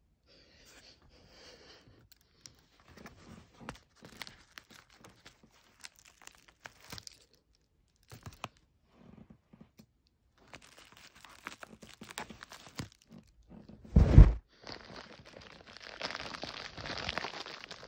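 Plastic poly mailer bag being handled and torn open, with scattered crinkles and crackles. One loud thump comes about two-thirds of the way through, followed by a few seconds of denser crinkling and tearing of the plastic.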